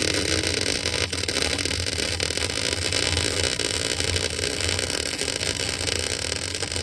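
MIG welding arc burning steadily: a continuous crackling sizzle over a low hum, with a brief break about a second in.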